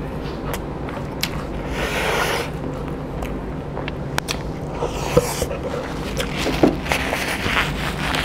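Close-up chewing and mouth sounds of a man eating pork with his hands: wet smacks and clicks scattered through, with a couple of noisier chewing stretches, over a steady low hum.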